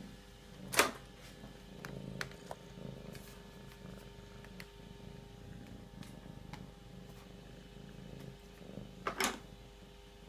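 Domestic cat purring close up, a low steady rumble that pulses in long waves. It is broken by two sharp knocks, the louder about a second in and another near the end.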